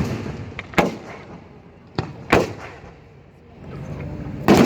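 Fireworks exploding in a series of sharp bangs, each with a rolling echo: four bursts, the loudest near the end.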